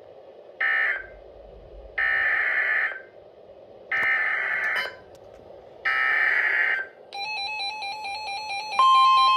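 Emergency Alert System SAME header: a short burst, then three loud, buzzy digital data bursts of about a second each, about a second apart, marking the start of a tornado warning. After them a quick stepped electronic tone pattern plays, and a steady alert tone begins near the end.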